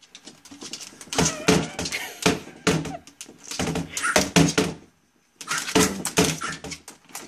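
Small dog pawing and scratching at a laptop's keys and case: a rapid clatter of clicks and thumps in two bursts with a short pause just after halfway.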